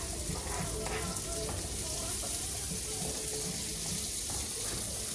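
Onions, garlic and peppers sizzling steadily in hot oil in a pan as they sauté.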